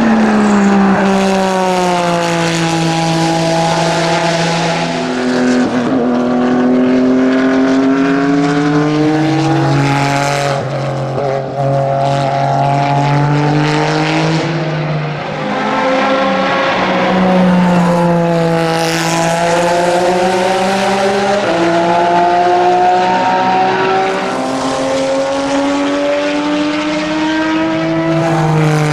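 Porsche 996 GT3 RSR race car's flat-six engine at racing speed, its pitch climbing and dropping sharply again and again with gear changes and stepping down on downshifts, across several passes.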